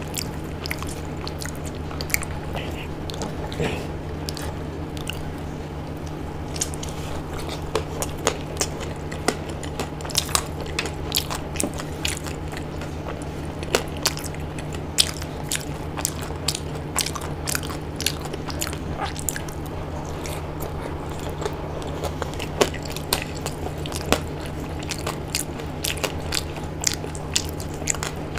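Close-miked eating sounds: a person chewing khichdi and biting into fried pakoda, with many sharp crunches and wet mouth clicks scattered throughout. A steady low hum runs underneath.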